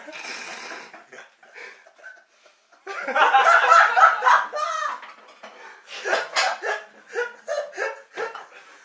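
Men laughing together at a table: a loud burst of laughter about three seconds in, followed by shorter bouts of laughter that trail off near the end.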